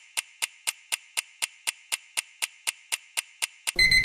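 Clock-ticking sound effect for a quiz countdown timer, sharp even ticks about four a second. Near the end the ticking stops and a brief, louder alert with a steady high tone marks the timer running out.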